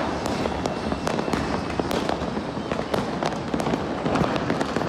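Fireworks going off continuously: many sharp cracks and pops, several a second, over a constant rumble of distant bursts.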